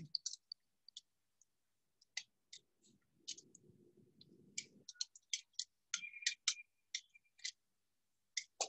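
Faint, irregular light clicks and taps, coming more often in the second half, with a faint low hum for a couple of seconds in the middle.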